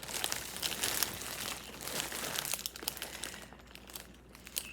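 Packaging crinkling and rustling in irregular bursts as hands handle the box's contents, easing off about three and a half seconds in.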